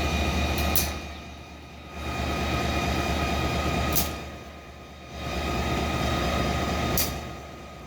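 Locomotive standing and running, a steady low rumble with a constant whine. Every three seconds or so it clicks, dips for about a second and comes back.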